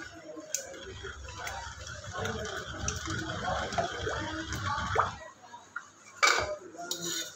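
Wooden pestle grinding and pounding watery anardana and mint chutney in a mortar, a wet churning and knocking that stops about five seconds in. A single sharp knock follows about a second later.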